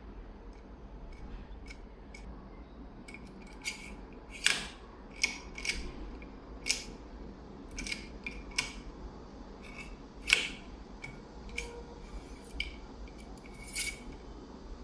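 Irregular sharp metal clicks, a dozen or so, from a locksmith's decoding tool being turned and worked inside a Kaba 70040 lock.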